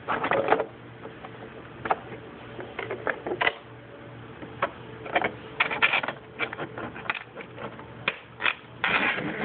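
Plastic RC car body and its wire body clips being handled and lifted off the chassis: irregular clicks, taps and rattles, with louder clusters at the start and near the end.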